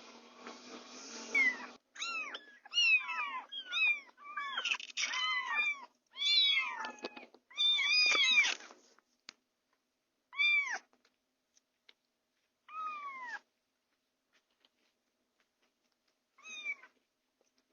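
Young kittens mewing: a quick run of high, arching mews, several overlapping, for about seven seconds, then single mews every few seconds. A steady hiss comes before the first mew.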